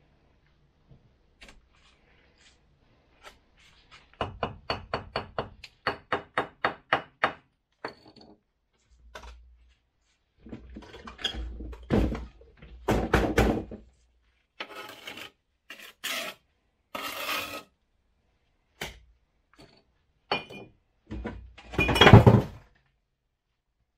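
A quick run of knocks, about four a second for some three seconds, as a refractory firebrick is tapped down into its mortar bed. Then bouts of scraping and rubbing of brick and mortar with scattered knocks, the loudest near the end.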